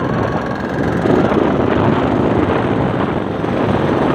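Yamaha RX-King's single-cylinder two-stroke engine running steadily under way, with the raspy 'ngorok' (snoring) exhaust note.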